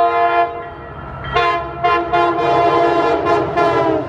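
Commuter rail diesel locomotive's multi-tone air horn. A long blast ends about half a second in; after a short pause comes a series of blasts, some short and some longer, and the chord drops in pitch near the end as the locomotive passes close by.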